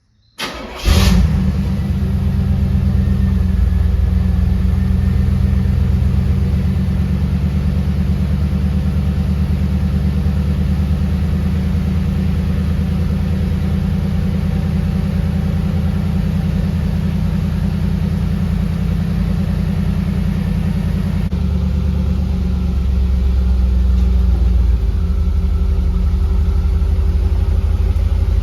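1987 Camaro IROC-Z's V8 starting, catching with a sudden burst about a second in, then idling steadily through its new stock muffler. The engine note changes about twenty seconds in.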